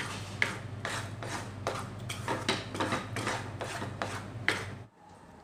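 A utensil scraping and stirring through thick, sticky plantain halwa mixture in a pan, in quick repeated strokes about three a second, with a steady low hum beneath; the stirring stops shortly before the end. The halwa is at its last stage, cooking down in ghee until nearly set.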